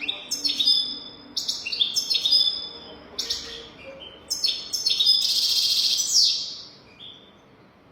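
European goldfinch singing: quick, high twittering phrases, then a long buzzy trill about five seconds in that stops just after six seconds.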